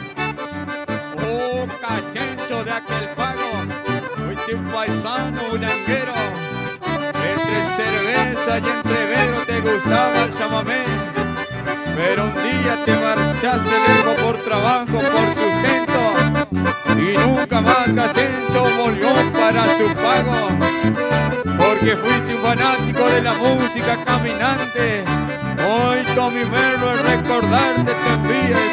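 Instrumental traditional folk music led by an accordion, playing continuously with a steady beat.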